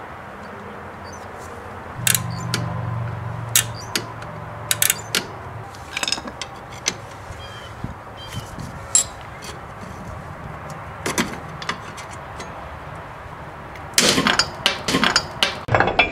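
Scattered metal clicks and scrapes as a pry bar works a rusted wheel cylinder loose on a rear drum-brake backing plate. A quick run of knocks near the end as the seized part breaks free.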